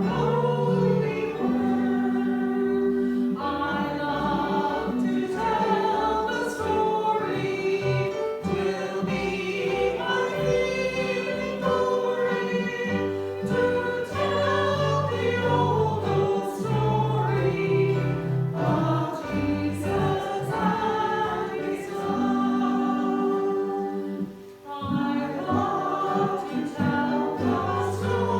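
A congregation singing a hymn together over a held accompaniment, with a brief break between lines near the end.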